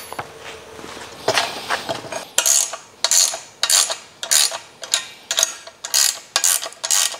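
Ratchet wrench tightening the nut of a U-bolt clamp that fastens a weather station's bracket to a steel conduit pole. The ratchet clicks in a steady rhythm of just under two strokes a second, starting about two seconds in.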